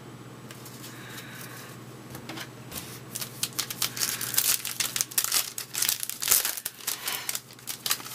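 Plastic foil wrapper of a 2011 Topps Update baseball card pack crinkling as it is torn open. It starts about three seconds in as a dense run of quick crinkles.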